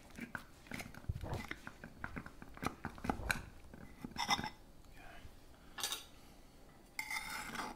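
A knife cutting through a baked pie crust, a run of small crunches and crackles, with the blade clicking and scraping against the ceramic pie dish. There are a few louder scratchy scrapes about four, six and seven seconds in.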